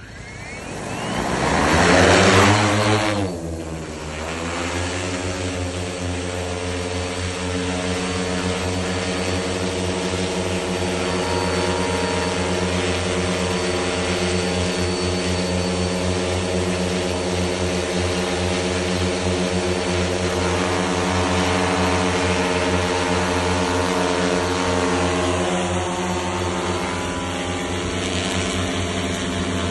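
Four-rotor 10-litre agricultural sprayer drone spinning up its propellers and taking off, loudest about two to three seconds in. After a dip in pitch it settles into a steady hovering hum.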